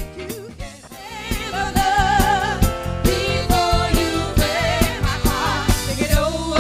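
Soul-style band music with drums and bass; after a brief dip at the start, a singer comes in about a second and a half in, holding long, wavering notes.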